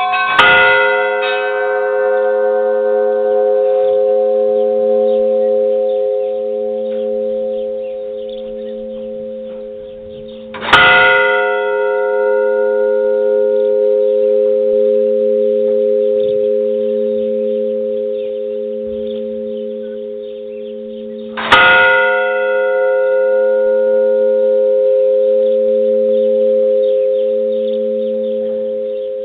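A single large church bell tolling slowly: three strikes about eleven seconds apart. Each strike rings on with a long hum and a low, evenly pulsing tone that barely dies away before the next strike.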